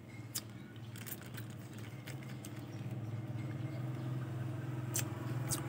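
A low, steady motor hum, like a nearby vehicle engine running, growing louder from about halfway through, with a few faint clicks as a drink is sipped through a straw from a plastic bag.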